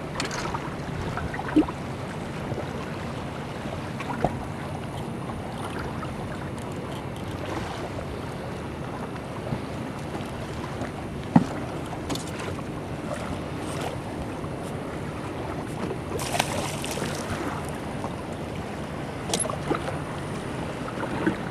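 Lake water lapping against the hull of a bass boat drifting in a light chop, with steady wind noise on the microphone. A few short knocks on the boat and a brief rush of noise about sixteen seconds in.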